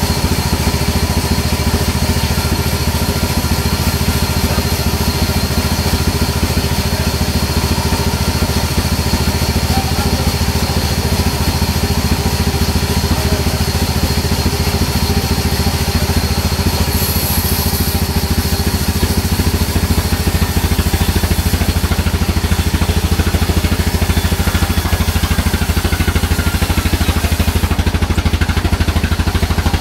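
Sawmill band saw running steadily, its blade cutting lengthwise through a margosa (neem) log, with a constant low machine hum.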